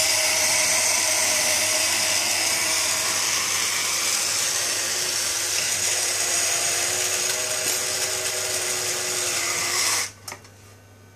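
Small battery-powered motor and gear train of a vintage 1965 Rosko McGregor smoking toy, whirring steadily as it works the arm that lifts the cigar. It cuts off suddenly about ten seconds in, followed by a single click.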